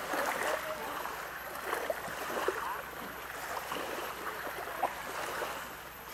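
Sea water sloshing and splashing against the side of a small wooden outrigger boat as a person slides off it into the water and swims.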